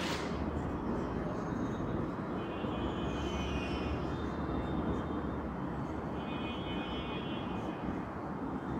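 Steady low background rumble with no change in level, and faint high squeaks of a marker writing on a whiteboard in two stretches, one starting about two and a half seconds in and one about six seconds in.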